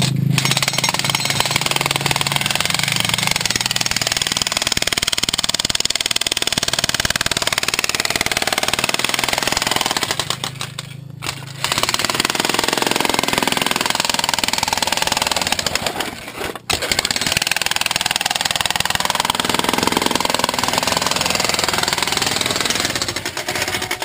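Hitachi electric jackhammer hammering into rock in rapid, continuous blows. It stops for about a second near the middle and cuts out again briefly a few seconds later.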